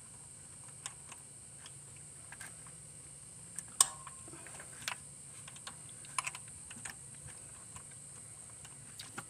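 Irregular small metallic clicks and taps of a socket and extension being wiggled in a spark plug well to work the socket loose from the spark plug, with one sharp click a little under four seconds in that rings briefly.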